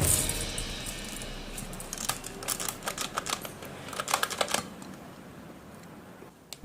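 Light, irregular clicking and rustling handling sounds, thickest in the middle and thinning out toward the end.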